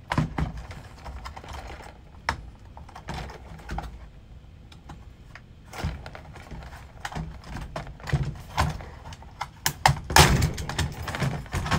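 Irregular plastic clicks, taps and knocks from the housing of a Cisco 7942 IP phone as its unscrewed bottom cover is worked loose and lifted off, with a louder run of clacks near the end.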